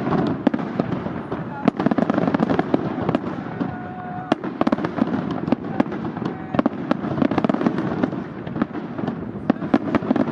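Aerial fireworks display: shells bursting in a dense, rapid string of sharp bangs and crackles, several a second, over a steady crackling background.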